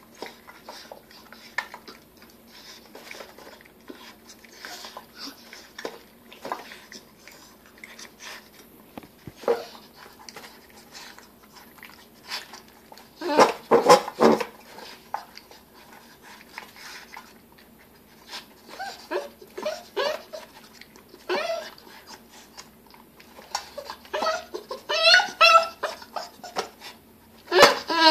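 Seven-week-old bull terrier puppy eating, with a steady run of small chewing and mouth clicks. It makes funny pitched vocal noises in short bouts, loudest about halfway through, again in the last third, and just before the end.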